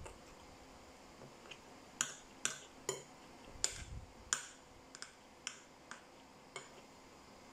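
Metal spoon and fork clinking and scraping against a ceramic bowl while eating, a string of about a dozen sharp clinks starting about two seconds in.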